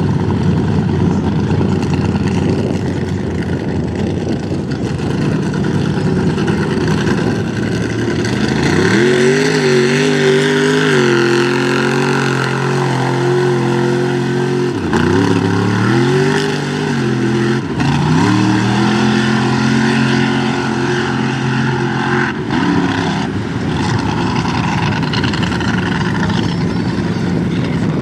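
Mud-bog truck engine revving up about a third of the way in and held at high revs, dropping off briefly twice before it falls away, over a steady loud rush of noise.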